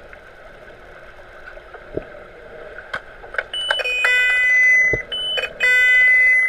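Underwater hockey referee's underwater sounder heard through the water: loud electronic beeps in several pitches, some short and some held about a second, starting about three and a half seconds in, signalling a stop in play. Before it there is a steady underwater hiss with a few sharp knocks.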